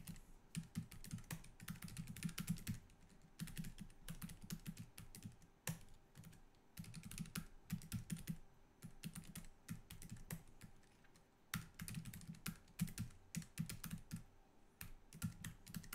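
Computer keyboard typing in quick runs of keystrokes broken by short pauses.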